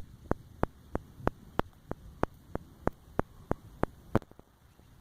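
Sharp ticks repeating evenly, about three a second, over a faint hiss; they stop near the end.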